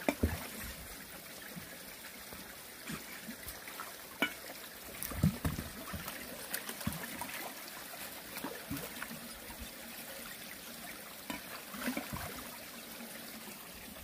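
Shallow mountain stream trickling over rocks, a steady hiss of running water, with occasional small splashes and knocks from gloved hands working in the water.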